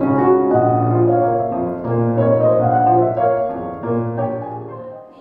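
Grand piano playing, shifting chords over long-held low bass notes, dying away near the end.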